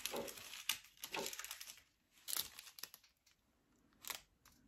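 Plastic click-seal bags of flies crinkling and rustling as they are handled: several short rustles over the first two seconds, then two brief ones later.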